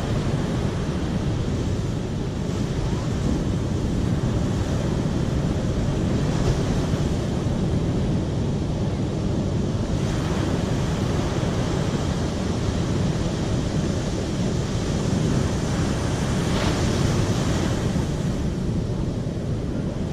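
Steady, deep rushing of water, even throughout.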